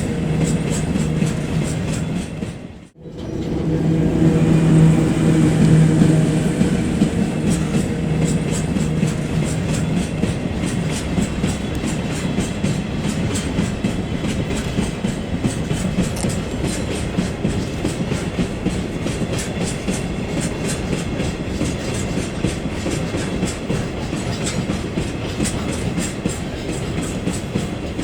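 Model freight train with ED71 electric locomotive models running on track: a steady motor hum with a fast, even clicking of wheels over the rail joints. The sound drops out briefly about three seconds in, then comes back louder.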